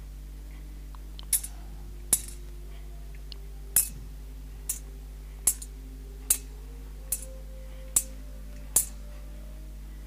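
Thurible being swung as the altar is incensed: its metal chains and lid clink against the censer bowl with each swing, a sharp metallic clink about every second, nine in all.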